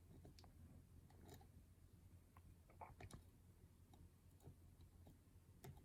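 Faint, scattered small clicks and taps of tools against tiny lock parts while a pin-tumbler lock is being taken apart, with a couple of slightly sharper clicks about three seconds in and near the end.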